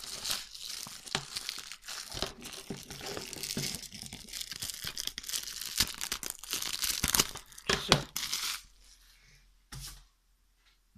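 Thin plastic shrink wrap being torn and peeled off a DVD case, a dense crinkling and crackling with many sharp clicks. It dies away about eight and a half seconds in, with one short click near the end.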